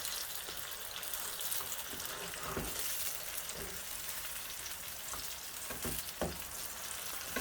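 Onions and pepper sizzling in hot palm oil in a pot as a spoon stirs them, with a few short knocks of the spoon against the pot.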